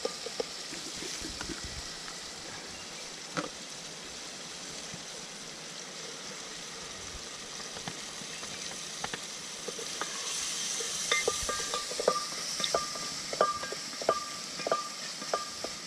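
Food sizzling as it fries in a cooking pot, with a spoon clinking against the pot as it is stirred. The clinks come at about two a second from about eleven seconds in.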